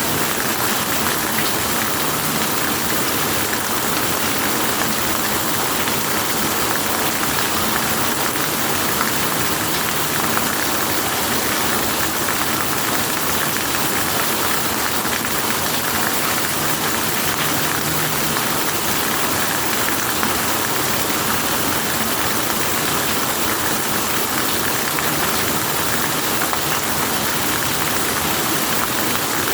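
Steady rain, an even hiss that holds at the same level throughout.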